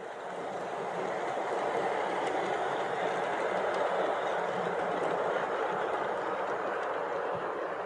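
O-scale model passenger train running on layout track: a steady rolling rumble of wheels and motors with faint light ticks, growing louder over the first few seconds as the locomotives approach, then holding steady.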